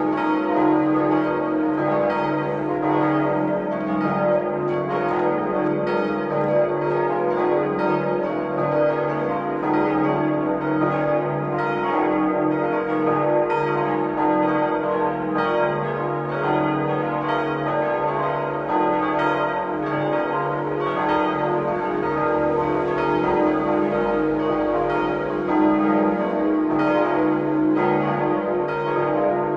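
The church bells of the Liebfrauenkirche in Ravensburg ringing together in a full peal, many strikes overlapping in a steady, unbroken stream of ringing tones.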